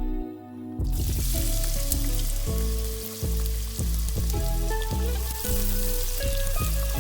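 Food sizzling as it fries in hot oil in a pan; the sizzle starts suddenly about a second in and then runs on steadily, over background music with a plucked bass line.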